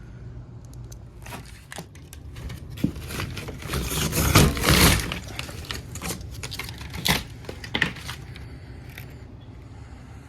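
Air handler's filter access being opened and a clogged air filter slid out, with scraping and sharp clicks and a louder scraping rush about four seconds in. The air handler's blower hums steadily underneath.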